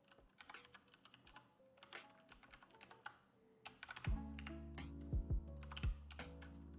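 Typing on a computer keyboard, a quick run of clicking keystrokes, over background music; about four seconds in, a heavy bass line with deep drum hits comes in and becomes the loudest sound.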